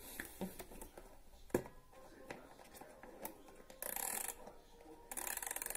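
A small box being handled: scattered light clicks and knocks, then two scratchy rattling scrapes, the second longer, as hands work at its lid.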